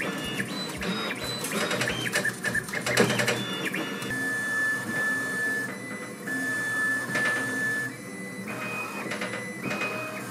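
Anycubic Vyper 3D printer's stepper motors whining in quickly shifting stepped pitches as the print head and bed dart through a high-speed, high-acceleration test pattern, first on V-slot wheels and then on MGN12H linear rails. There are sharp clacks through the first few seconds, and later the tones are held longer.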